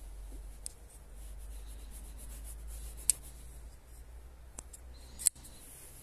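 Twosun TS332-CF folding knife's blade mechanism clicking: four sharp metallic clicks of the blade being flipped and snapping into place, the loudest about three seconds in and just after five seconds.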